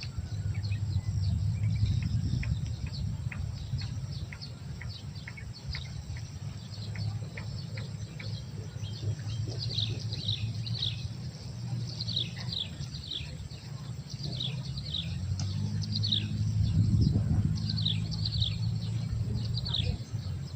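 Birds calling: repeated short, falling high chirps, coming in quick groups from about halfway through, with fainter short ticks before that. A steady low rumble sits underneath.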